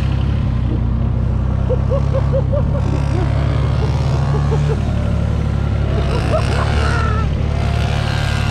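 Motorcycle engine running at a steady, low speed heard from on the bike, with no revving. Faint voices and short calls are heard over it.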